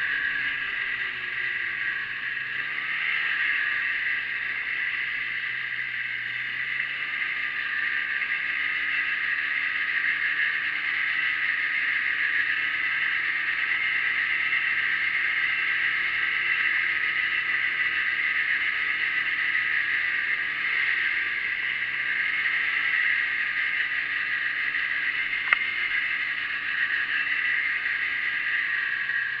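1987 Arctic Cat Cougar snowmobile's two-stroke engine running steadily as it travels over snow, its pitch rising and dipping a few times with the throttle. One sharp click late on.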